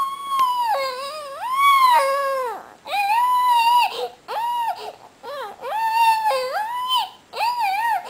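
A young child crying and whining inconsolably: a string of high-pitched, wavering wails, each lasting up to a second or two, broken by short pauses for breath. The parent puts the crying down to the child detoxing from metal toxicity.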